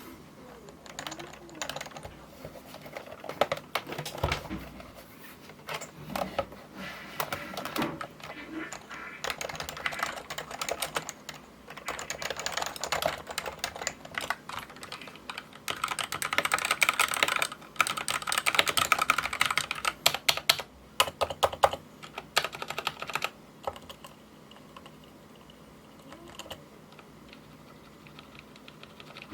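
Typing on a computer keyboard: bursts of rapid keystrokes with short pauses, densest in the middle and thinning out over the last few seconds.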